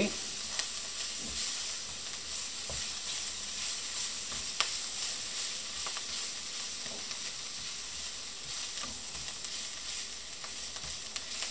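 Minced garlic and parsley sizzling in olive oil in a nonstick frying pan, with a plastic spatula stirring through them and now and then scraping or tapping the pan.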